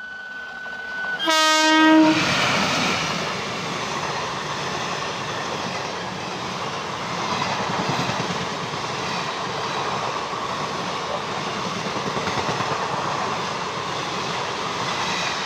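WAP-1 electric locomotive sounding one short horn blast about a second in. Then its passenger coaches run past at about 95 km/h with a steady, loud rolling noise of wheels on rail.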